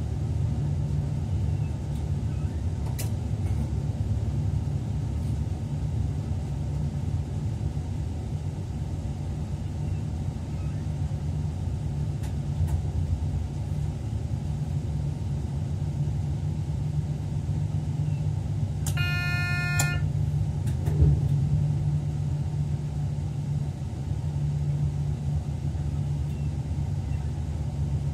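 Steady low rumble of a train running, heard inside the driver's cab. About two-thirds of the way through, a short pitched beep lasting about a second sounds, followed shortly by a single knock.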